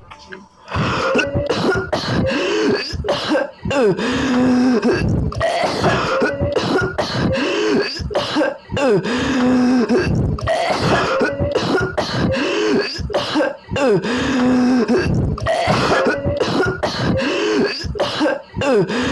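Exaggerated, goofy coughing and throat-clearing by a voice, hacking coughs mixed with wavering, drawn-out voiced tones. The same cough sequence repeats about every five seconds, as a looped sound clip.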